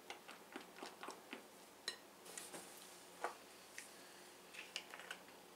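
Spatula folding eggnog in a glass bowl, ticking lightly against the glass several times, followed by a few scattered knocks and a short rustle as the spatula and a spoon are set down on the countertop.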